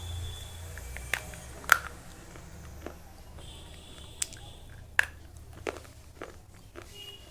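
Slate pencils being bitten and chewed, giving sharp, irregular crunches about once a second, the loudest just under two seconds in.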